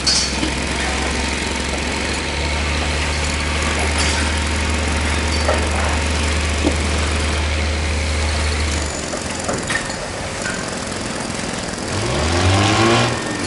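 Steady low mechanical rumble with a noisy hiss and a few scattered clicks; the rumble drops out about two-thirds of the way through, and near the end a rising whine sounds, like a motor speeding up.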